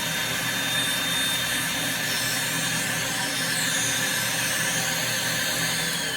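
Podiatry micromotor nail drill with its built-in dust extractor running steadily, a suction fan hiss with a faint high whine that shifts in pitch about two to four seconds in.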